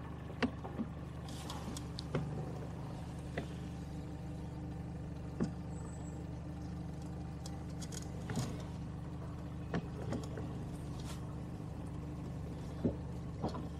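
Steady low engine hum, as of a motor running at idle, with a scatter of light clicks and knocks at irregular moments as the boat comes onto its trailer.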